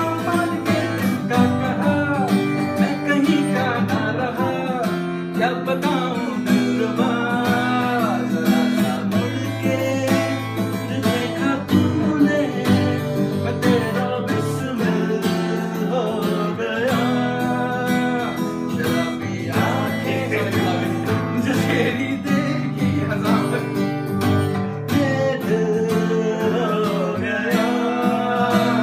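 Acoustic guitar strummed in a steady rhythm, with a man's voice carrying a gliding sung melody over it.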